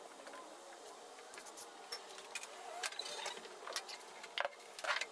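Scattered light clicks and taps from a panel and small tools being handled on a wooden floor, a few at a time, coming thicker and louder near the end.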